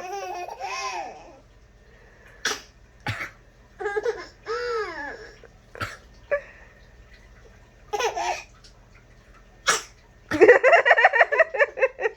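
Laughter in short scattered bursts, then a long run of rapid, hearty laughing from about ten seconds in.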